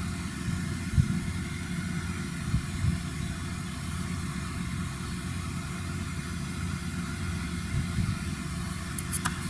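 Claas tractor towing a Claas Liner 3600 rotary rake, its engine running at a steady working speed as a low hum, with a few dull thumps and brief clicks near the end.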